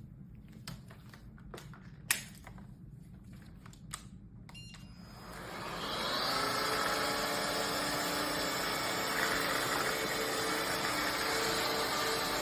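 A few handling clicks, then a Bissell CrossWave cordless wet-dry vacuum mop switches on about five seconds in. Its motor and brush roll spin up over about a second to a steady running whine.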